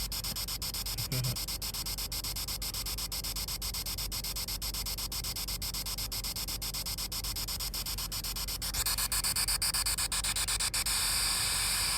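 Steady static hiss with a fast, even ticking running through it; about nine seconds in the hiss turns brighter and louder.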